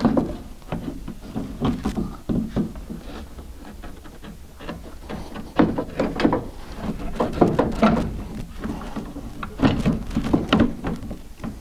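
Door window glass with glued-on metal brackets being worked down into a 1969 Mercury Cougar's door, knocking and scraping against the steel door shell in a string of irregular clunks and scrapes.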